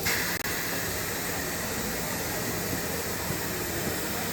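Steady background noise of a busy exhibition hall, an even hiss without distinct events, broken by a brief dropout about half a second in.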